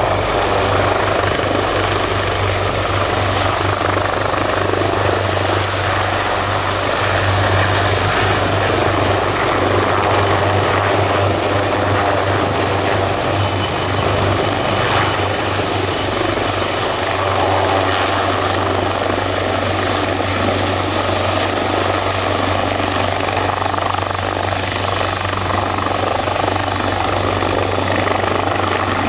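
Turbine helicopter running steadily: rotor noise with a continuous high turbine whine held at one pitch.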